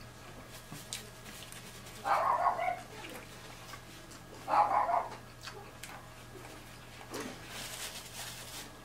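A dog barking twice, about two and a half seconds apart, each a short burst.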